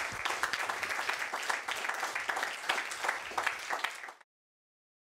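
Audience applauding, many hands clapping, cut off suddenly about four seconds in.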